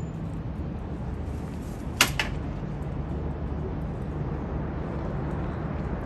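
Low, steady rumble of the Red Arrows' BAE Hawk T1 jets flying past in formation, with a sharp double click about two seconds in.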